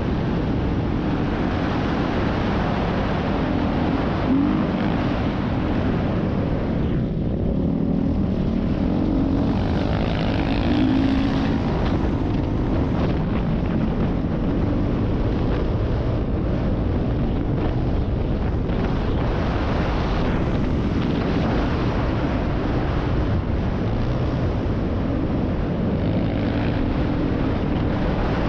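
Dirt bike engine running under throttle, heard from the rider's helmet, with its tone rising and falling as the throttle changes, over a steady rush of wind and tyre noise. It eases off briefly about seven seconds in.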